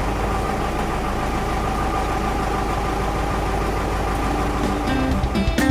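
A construction vehicle's engine idling steadily with a low rumble, played as the vehicle's sound after its name is called. Music comes in near the end.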